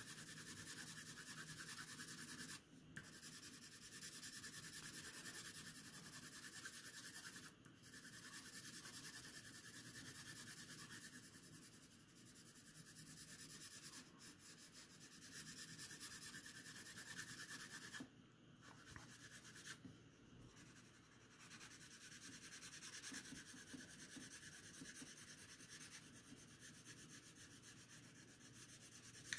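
Graphite pencil shading on paper: a faint, steady scratching of strokes, broken by short pauses every few seconds, as the dark shadow value is built up gradually.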